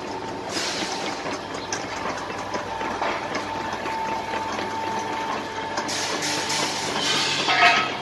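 Inclined cleated belt conveyor running: its electric drive motor gives a steady whine, with light clattering from the belt running over the rollers. Near the end there is a brief, louder high squeal.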